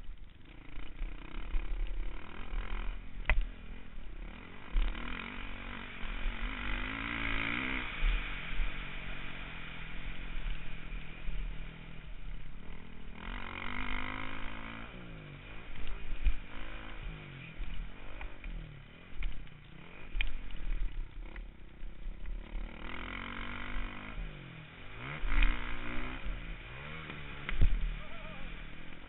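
Dirt bike engine revving up and falling back over and over as it is ridden hard around a motocross track, with a few sharp knocks from the bumps and bursts of wind and engine noise.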